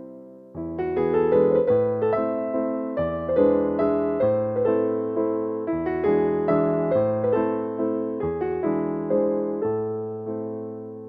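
Background piano music: a gentle melody of struck notes over a bass line, resuming about half a second in after a fade.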